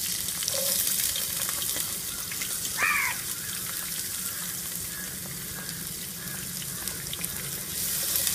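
Chopped garlic and ginger frying in hot oil in a pan, a steady sizzle. A brief high chirp sounds about three seconds in.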